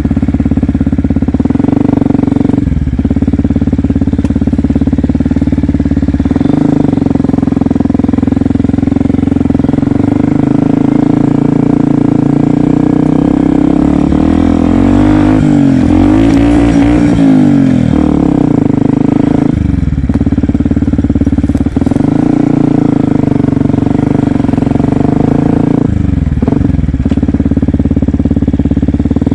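Yamaha WR125X's 125 cc single-cylinder four-stroke engine running under way on an off-road trail, its pitch dropping and picking up again several times and rising and falling between about halfway and two-thirds through.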